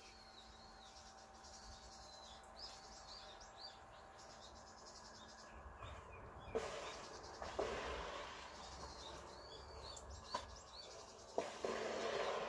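Small birds chirping outside. From about six seconds in, water sloshing and splashing as hands work in a bucket of sugar water, with a few sharp knocks against the plastic bucket.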